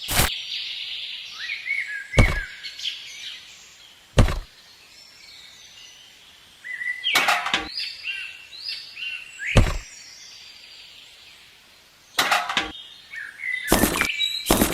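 Small birds chirping in short calls, broken by sharp knocks about every one to two seconds.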